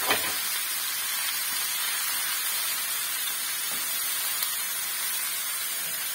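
Diced eggplant and peppers sizzling steadily in hot oil in a frying pan, with one light knock just after the start.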